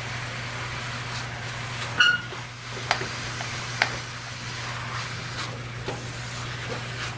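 Ground pork and beef cooking in a pot: a faint sizzle over a steady low hum. About two seconds in, a sharp metallic clink rings briefly, like a utensil knocking the pot, and two more sharp clicks follow about a second apart.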